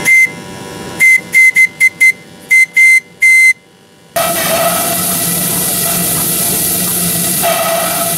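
Steam whistle on a 2-inch-scale Ransomes compound traction engine tooting about nine times, one toot at the start and then a run of short and longer toots, followed about four seconds in by a steady hiss.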